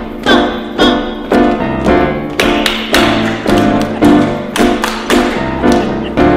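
Groove music with a steady beat of about two sharp strikes a second over sustained keyboard chords.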